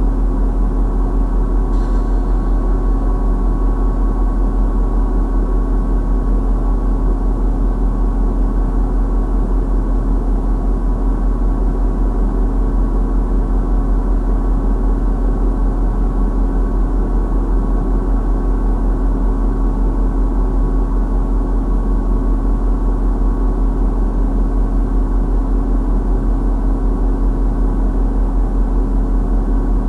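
A loud, steady idling engine drone: a deep hum under a steady mid-pitched tone, unchanging throughout.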